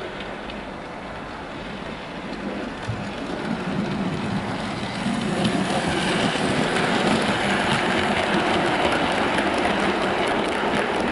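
OO gauge model train, a Bachmann Caledonian 812 Class locomotive hauling Hornby LMS Stanier coaches, running along the track. The rumble grows louder about five seconds in as the train passes close by, with quick clicking as the wheels cross rail joints.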